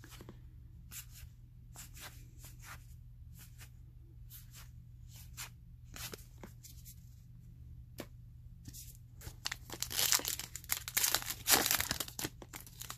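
Baseball trading cards being flipped through by hand, with soft scattered flicks. About ten seconds in, a card pack's wrapper is torn open with a few seconds of loud crinkling and ripping.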